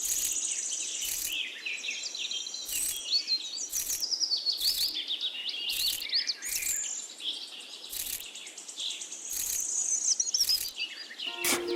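Birds chirping and calling, with many quick rising and falling chirps and trills, and short sharp clicks about once a second.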